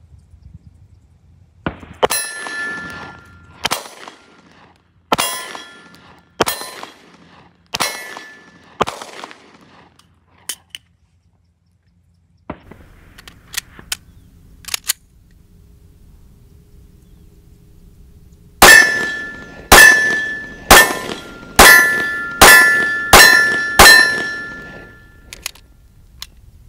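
Walther PPS M2 9 mm pistol fired in two strings: about six spaced shots, then a pause with a few small clicks of the pistol being handled, then seven quicker shots. After most shots a steel target rings with a clear metallic tone.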